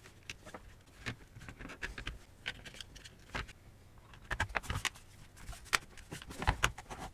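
Plastic housing of a DEFA Termini II car cabin heater being handled and fitted back together: scattered light clicks and knocks of plastic parts and cable, coming more often in the second half.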